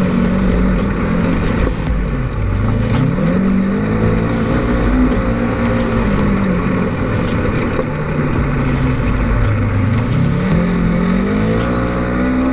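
Polaris RZR 900 side-by-side's twin-cylinder engine running under way, its pitch rising and falling as the throttle is worked. It eases off about two seconds in and again near the end, each time revving back up.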